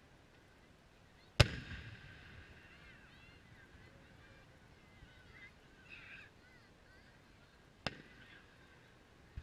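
Aerial fireworks shells bursting. A loud boom about a second and a half in rolls and echoes away, and a second, fainter bang comes near the end.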